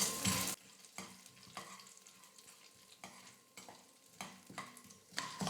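Urad dal and chana dal frying in oil in a kadai while being stirred: a brief sizzle at the start, then faint scattered taps and scrapes of the spoon against the pan, louder again near the end.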